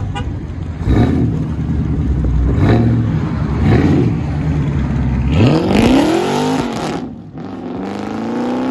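2016 Dodge Charger's 392 (6.4 L) HEMI V8 through straight-piped dual exhaust: a deep rumble at low revs with a few short swells, then accelerating hard away with the pitch rising steeply from about five seconds in. The sound drops briefly around seven seconds in and then climbs again as it keeps pulling.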